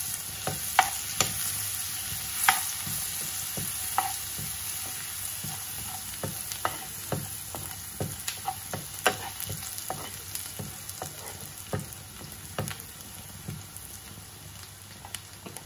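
Chopped garlic sizzling in butter and oil in a nonstick frying pan, stirred with a metal spoon that taps and scrapes against the pan again and again. The sizzle slowly fades over the stretch.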